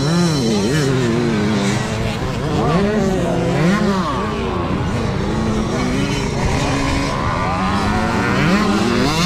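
Motocross dirt bike engines revving up and down as the bikes ride the track, the pitch rising and falling again and again with the throttle.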